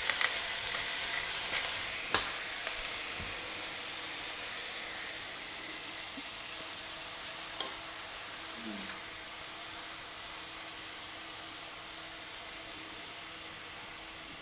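A hot pan of sauce sizzling steadily on the hob, slowly fading, with a metal spoon clicking against the pan a couple of times as the sauce is scooped out.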